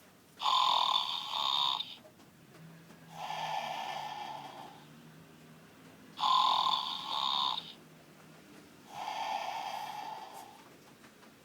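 Snoring: two slow cycles about six seconds apart, each a louder snore followed by a quieter, longer breath.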